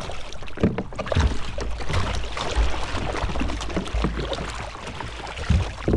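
Water splashing and sloshing against the side of a kayak as a hooked conger eel thrashes at the surface, in irregular splashes.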